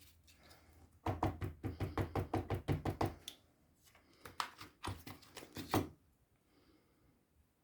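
Ink pad dabbed rapidly onto a stamp to ink it: two runs of quick light taps, about six or seven a second, the first about two seconds long and the second shorter.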